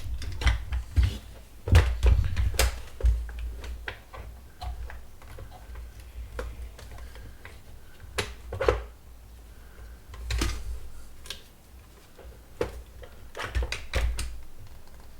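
Irregular clicks, taps and knocks of hard plastic parts of a Dyson air-cleaning fan being handled and pried at during disassembly. The louder knocks come about two seconds in and around ten and fourteen seconds.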